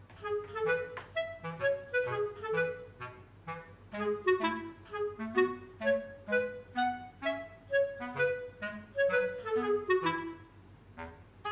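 Light instrumental background music: a lively melody of short notes over a bass line, with a brief pause near the end before it starts again.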